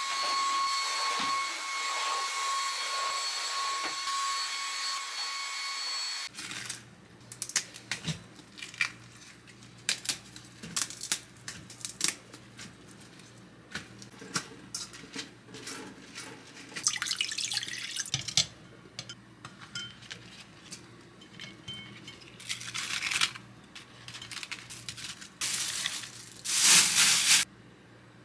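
Vacuum cleaner running with a steady motor whine, cutting off abruptly about six seconds in. Then scattered small clicks and knocks, with short bursts of running water, the loudest near the end.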